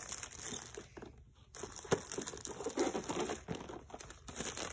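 Thin plastic shrink-wrap crinkling as it is peeled off a cardboard toy box, in fits and starts with a short lull about a second in.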